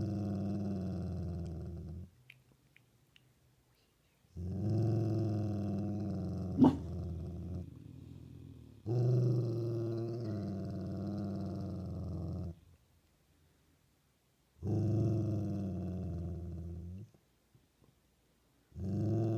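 Dog growling in a run of long, low growls, five of them, each lasting two to four seconds with short pauses between. A single sharp click sounds during the second growl.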